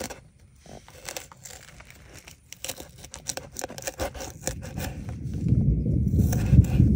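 A knife cutting vegetables into small pieces on a board: a quick, irregular run of short cuts and taps. Near the end a low rumble builds and becomes the loudest sound.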